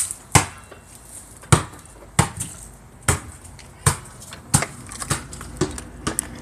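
A series of sharp knocks or thumps, about one every half second to a second.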